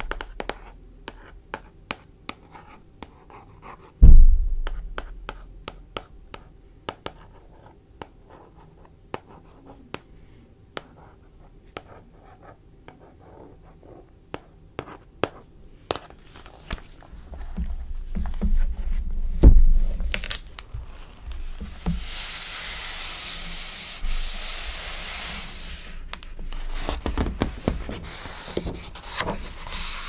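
Fingers and nails tapping on the glossy cover of a hardcover book, a run of light clicks with one heavy thump about four seconds in. In the second half, hands rub and slide across the cover in a steady hiss that is loudest a little past the middle.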